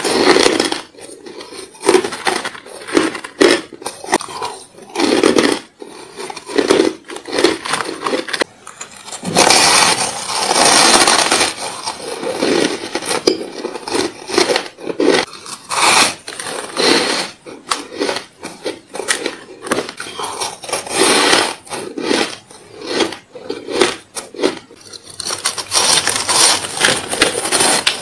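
Bites and chewing of crushed and frosted ice: repeated irregular crunches and crackles, with stretches of dense, continuous crunching.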